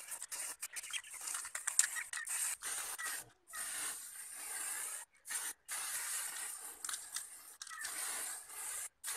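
Aerosol spray-paint can hissing as paint is sprayed onto a metal fan guard, in a run of bursts a second or two long with brief breaks between them.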